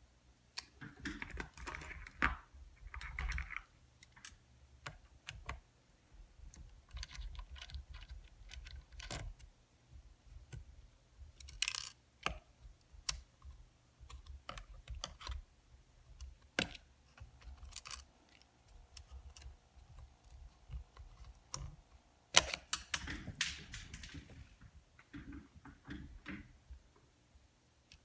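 Irregular light clicks, taps and short scrapes of small plastic and metal parts being handled while taking the SSD out of a Getac F110 rugged tablet, with a few sharper knocks among them.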